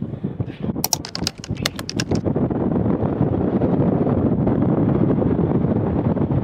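Strong wind buffeting the microphone, setting in loud about two seconds in, just after a quick run of about ten sharp clicks.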